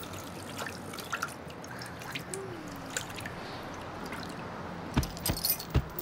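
Cartoon sound effect of water sloshing and dripping in a small metal bucket as an elephant draws water up its trunk, with scattered small clicks. A few heavy thumps come about five seconds in.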